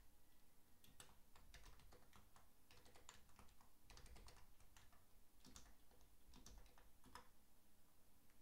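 Faint typing on a computer keyboard: a string of quick, uneven keystrokes that stops a little after seven seconds in.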